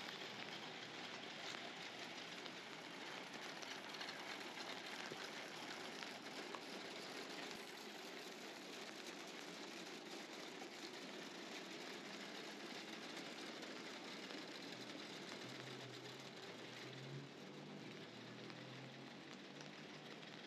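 Steady rain falling on a wet street: an even hiss of rain and splashing water. A faint low hum joins in for a few seconds near the end.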